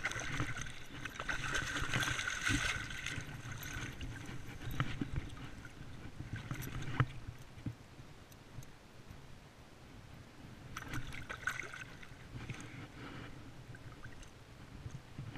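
Water splashing and sloshing as a landed salmon thrashes in the river shallows and is handled at the bank. The splashing comes in a burst over the first few seconds and again about eleven seconds in, with a few sharp knocks between.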